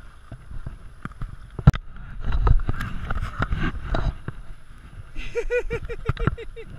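Knocks and rubbing from an action camera being picked up and moved, with a sharp knock a little under two seconds in. Near the end comes a quick run of short high-pitched vocal sounds.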